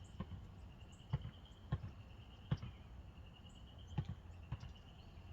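Scattered light clicks and taps of small tools and parts being handled while working on motorcycle carburetors, about six in all, over a faint steady high trill in the background.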